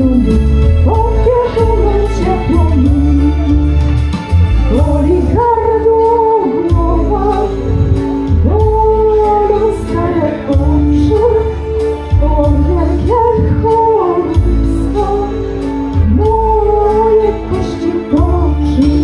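A song sung by a woman's voice over a musical accompaniment with a heavy, steady bass.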